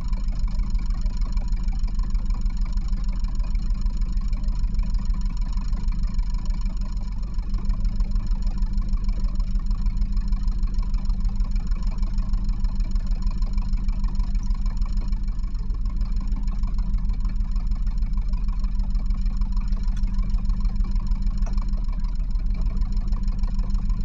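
Catalina 30 sailboat's inboard engine running steadily, a fast even throb, with a brief slight dip about seven seconds in.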